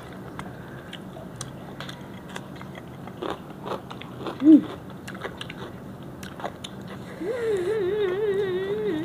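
Mouth-eating sounds of people chewing and biting into crisp fried fish and raw greens, with many small crunching clicks. A short vocal sound comes about halfway through, and from about seven seconds a wavering hum of enjoyment begins.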